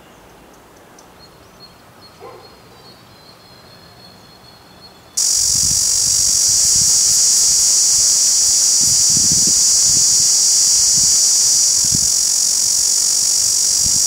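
Cicada singing: a loud, steady, high-pitched buzz that begins abruptly about five seconds in and keeps going without a break.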